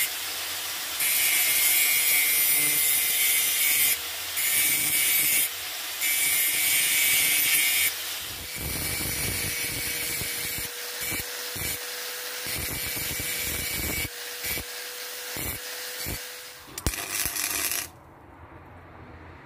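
An angle grinder runs with a steady whine while its disc cuts into a steel bar. It gives several loud, hissing bursts of cutting, then rougher, choppier grinding. About a second and a half before the end the sound drops sharply to a quieter hiss.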